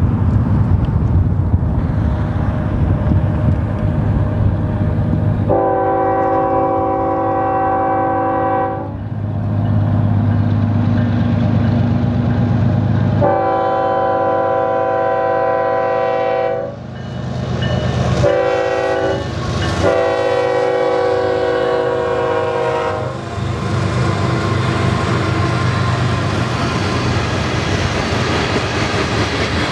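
Union Pacific GE C45ACCTE (ES44AC) diesel locomotives passing at the head of a freight train, engines running, while the lead unit's multi-chime air horn sounds four times in a long, long, short, long pattern, the standard grade-crossing signal. Once the horn stops, the freight cars roll by with a steady noise of wheels on the rails.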